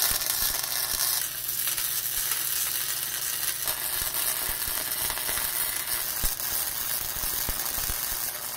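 Electric arc welding on steel pipe: a steady crackling sizzle from the arc, with many sharp pops of spatter.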